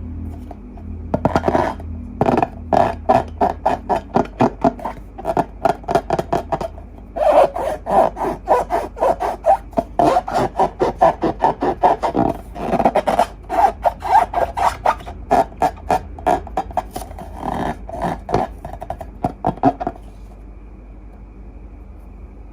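Slime being squeezed and worked by hand, a rapid run of short crackling pops several times a second that stops about two seconds before the end.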